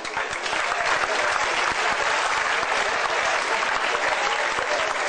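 Crowd applauding, a steady dense patter of many hands clapping.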